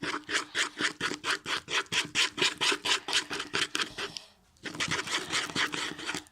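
Slime mixture being stirred fast, a rhythmic scraping of about five strokes a second that stops for a moment about four seconds in, then goes on. The contact lens solution and baking soda activator has just gone in, so this is the mixing that sets the slime.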